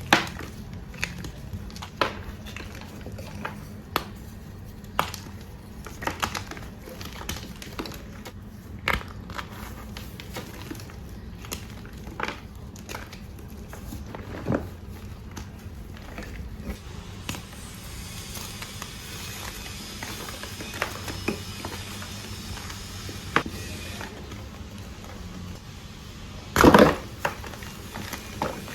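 Bars of reformed gym chalk being crushed, a sharp crunch every second or so, over a steady low rumble of construction work. A much louder crunch comes near the end.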